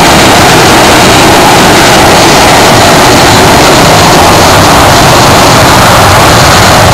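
McDonnell Douglas MD-80-series jetliner on its takeoff roll, its rear-mounted Pratt & Whitney JT8D turbofans at takeoff power giving a very loud, steady roar.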